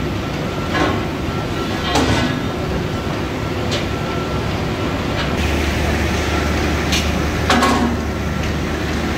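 Workshop machinery running with a steady hum, broken by five or six sharp metallic clanks from steel spring leaves and tools being handled. A deeper steady hum comes in about five seconds in.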